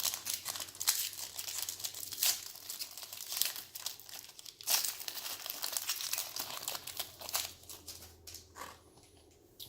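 Foil wrapper of a Donruss Optic basketball card pack being torn open and crinkled by hand: a dense run of irregular crinkling and crackling that thins out near the end.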